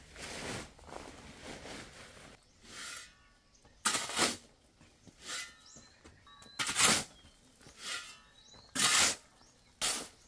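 Steel spade scraping and digging into a pile of gravel, a short stroke about once a second, with a few faint bird chirps.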